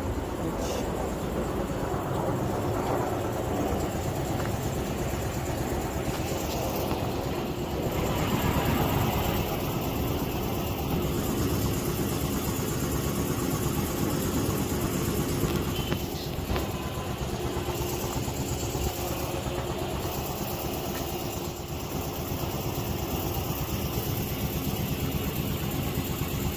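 Kia All New Morning's engine idling steadily.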